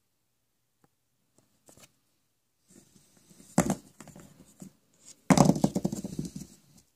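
Packaging or plastic being handled and torn: a few faint clicks, then crinkling and tearing in two spells, with a sharp loud crackle about three and a half seconds in and a longer, louder run of crackling near the end.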